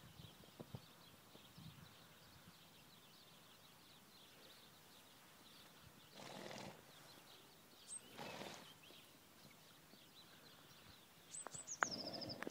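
Near-quiet outdoor ambience with faint high chirps, two soft breathy rushes about six and eight seconds in, and a short high call near the end.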